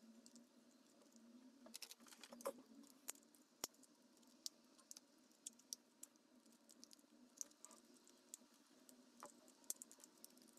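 Near silence with faint scattered clicks, taps and small scratches of hard plastic: the opened casing of an Apple laptop charger being turned and worked in the hands, with a few clicks bunched together about two seconds in.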